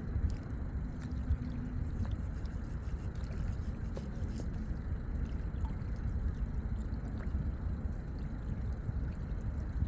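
Small waves lapping steadily at a lake shore, over a continuous low rumble.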